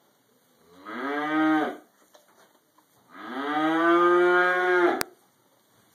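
A cow mooing twice: a short moo about a second in, then a longer one of about two seconds, each rising in pitch as it starts.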